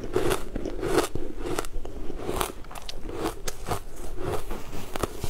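Close-up chewing of green powder-coated ice, with a run of hard, irregular crunches as it breaks between the teeth.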